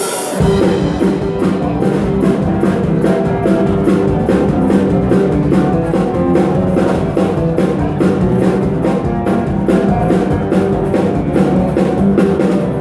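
Live dance band playing, with a drum kit keeping a steady beat over a bass line; the music comes in about half a second in.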